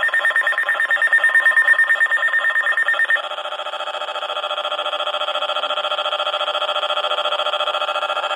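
NOAA Weather Radio alert alarm sounding for an incoming warning: a loud, rapidly pulsing electronic tone that switches to a different pulsing tone about three seconds in.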